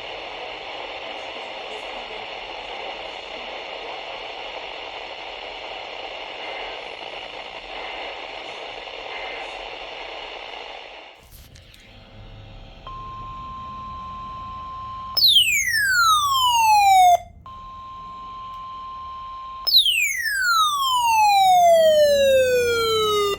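Radio receiver hiss and static between broadcasts. About halfway through come electronic alert tones: a steady beep held about two seconds, then a loud, buzzy falling sweep, played twice.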